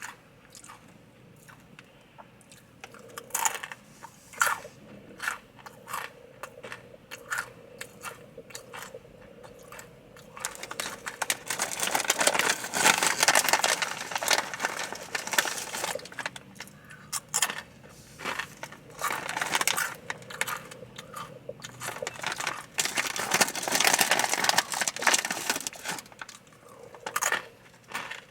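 Takis rolled corn tortilla chips being chewed close to the microphone. Sparse crunches come first, then dense, loud crunching starts about ten seconds in, eases off, and picks up again later.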